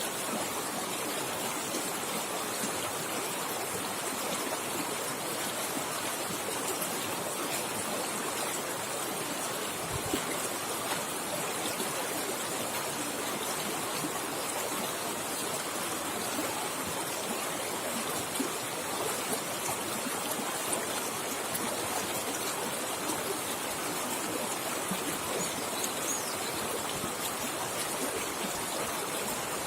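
River water flowing fast over rocks: a steady, even rushing with small splashes, and one brief low knock about ten seconds in.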